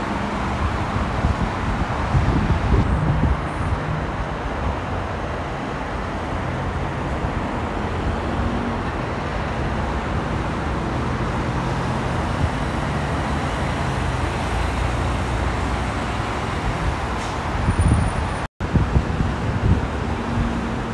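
Steady roar of multi-lane freeway traffic: tyre noise and the engines of cars and semi-trucks passing, with a low truck-engine hum underneath. A brief dead gap comes about eighteen seconds in.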